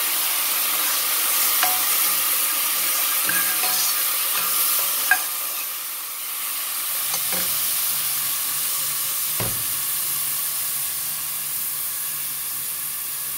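Water sizzling in hot oil with fried garlic, green chilli and masala in a stainless steel pot, a steady hiss, while a metal spoon stirs and scrapes, clinking against the pot a few times.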